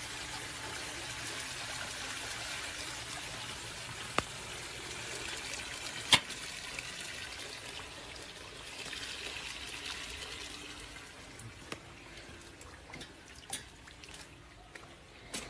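Hailstorm falling on grass and ground: a steady hiss of falling hail and rain with sharp knocks of stones striking something hard, the loudest about six seconds in. The hiss thins out after about eleven seconds, leaving scattered clicks.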